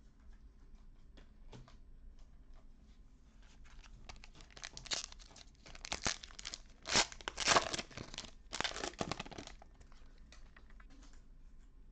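A trading-card pack's wrapper being torn open and crinkled by hand. It starts about four seconds in as a run of rough tearing and crinkling bursts, loudest a little past the middle, and dies away near the end.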